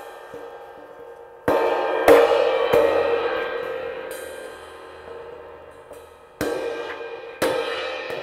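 Suspended cymbal struck with bare hands and fingertips. Three strikes come close together about a second and a half in, and two more near the end, each one ringing and slowly fading.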